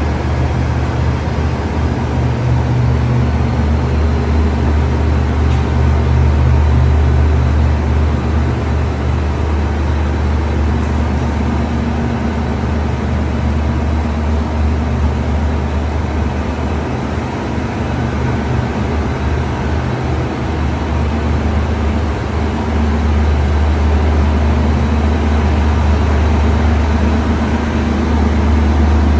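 Steady low engine hum of a KTM diesel-hauled passenger train at the platform, running without letup.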